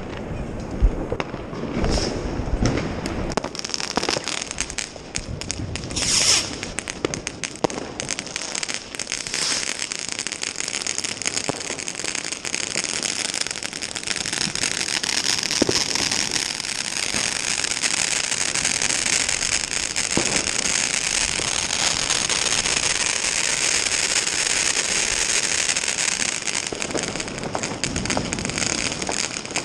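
New Year's fireworks. Scattered sharp bangs of firecrackers and rockets fill the first several seconds, then give way to a dense, unbroken crackling of many fireworks going off at once.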